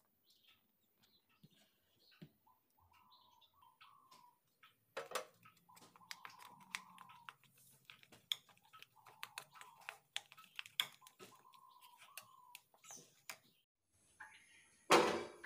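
Spoon stirring and scraping in a plastic bowl, making a run of quick clicks and taps, while a bird calls over and over with short, even calls. Near the end comes one loud clunk, the loudest sound here.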